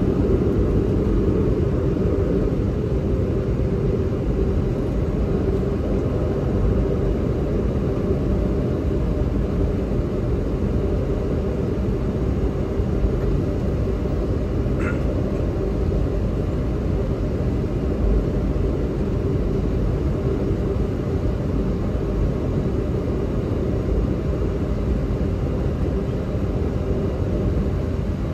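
Airliner jet-engine noise heard inside the cabin during taxi: a steady drone with a constant hum, unchanging throughout, and one short faint high sound about halfway through.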